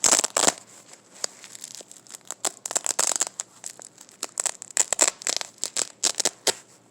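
Velcro strap on an umbrella being pulled apart in repeated short, crackling rips, in bursts a second or so apart.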